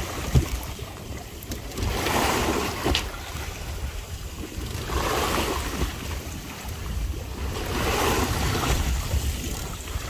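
Sea waves washing against a boat's hull, swelling about every three seconds, with wind buffeting the microphone and a sharp knock about half a second in.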